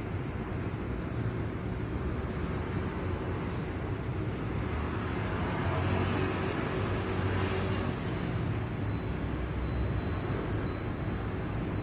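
Road traffic rumble from the surrounding streets, steady and low, swelling as a vehicle passes about halfway through.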